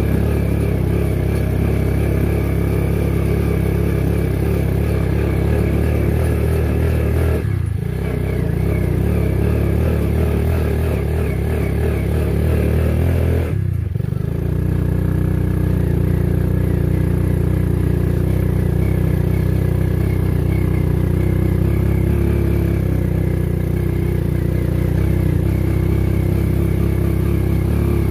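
Old motorcycle engine in a homemade four-wheel-drive ATV running steadily. Its sound dips briefly twice, once about a quarter of the way in and again about halfway through.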